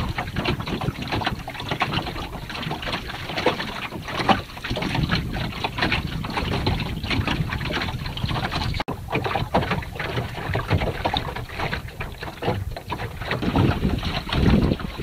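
Water splashing and rushing against the wooden hull of a Caledonia Yawl under sail, with wind buffeting the microphone. The sound cuts out for an instant about nine seconds in, and the wind rumble swells near the end.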